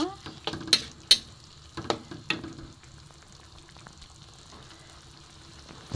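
Metal spatula stirring a simmering coconut-milk sambal in a wok, with several clinks and scrapes against the pan in the first two and a half seconds, then only a low steady simmer.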